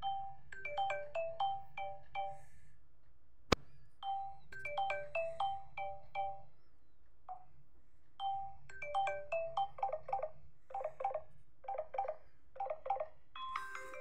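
Samsung Galaxy J2 Prime ringtones playing: short, bright, mallet-like melodic notes in quick runs, with a sharp click about three and a half seconds in. From about ten seconds in, a chord pulses over and over.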